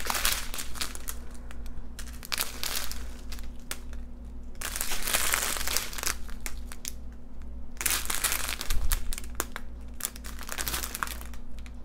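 Thin clear plastic bags of diamond painting drills crinkling and rustling as they are picked up and handled, in irregular bursts that come thicker about five and eight seconds in.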